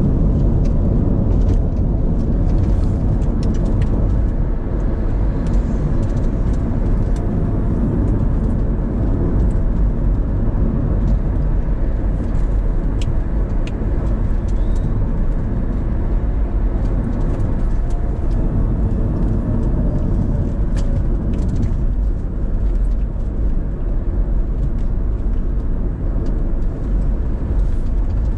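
Car driving along: a steady low rumble of engine and tyre noise, with faint ticks and small rattles now and then.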